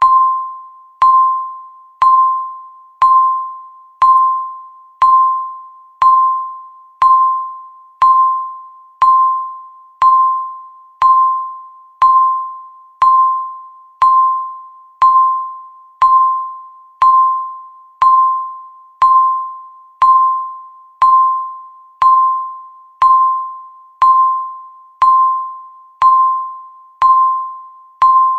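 Countdown timer beeping once every second: a single high electronic tone that starts sharply and fades away quickly, each beep marking one more second ticked off the countdown.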